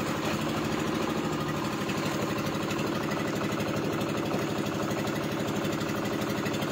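Small wooden fishing boat's engine running steadily, its firing a fast, even pulse that does not change.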